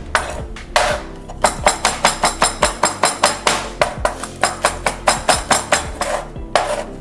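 Chef's knife blade striking and scraping on a wooden cutting board as garlic cloves and kosher salt are mashed into a paste. A couple of slower strokes, then a quick regular run of about five strokes a second, with a short pause near the end. Background music plays underneath.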